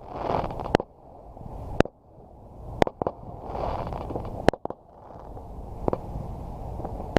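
Fireworks going off: sharp bangs about once a second, with a rolling rumble and crackle between the reports.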